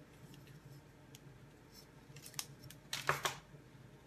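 Faint paper handling: a few light clicks, then a short burst of crisp rustling about three seconds in, as thin paper strips are picked up and pressed onto mini glue dots on a card.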